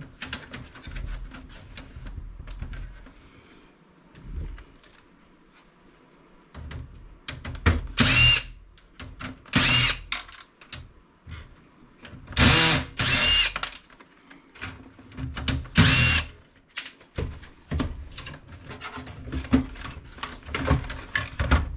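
Power drill running in about five short bursts, its motor pitch sweeping as it spins up and down, with small clicks and clatter of handled parts between the bursts.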